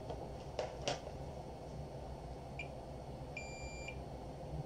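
Digital multimeter beeping as its probes touch a diode removed from a power supply: a brief chirp, then a steady high beep of about half a second near the end, after a couple of light probe clicks. The beep goes with a near-zero reading across the diode, the sign that the diode has shorted.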